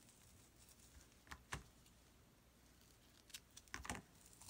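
Near silence broken by soft handling noise of crocheting with a hook and fuzzy scrubber yarn: two short clicks about a second and a half in, and a cluster of clicks and rustles near the end.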